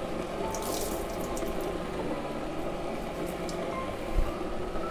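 Water splashing steadily into a stainless-steel kitchen sink as a soaked T-shirt is wrung out over it, with a few light clicks early and a low knock near the end.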